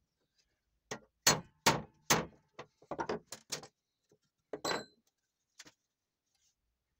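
Hammer blows on a steel punch, driving a hole through a hand-saw blade laid on a steel block: about ten sharp metallic strikes in quick succession over two and a half seconds, the first ones loudest. A single ringing metal clink follows about a second later.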